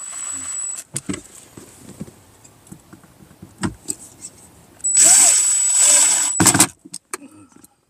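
Cordless drill running in one burst of about a second and a half, its motor speeding up and then slowing, then a second short burst right after. Light clicks of handling come before it.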